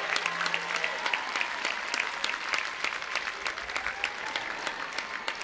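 Theatre audience applauding, a dense patter of clapping that slowly fades.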